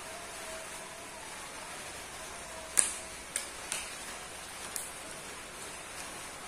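Four sharp clicks of a plastic spoon knocking against a plastic takeaway container while scooping rice, the first the loudest, over a steady background hiss.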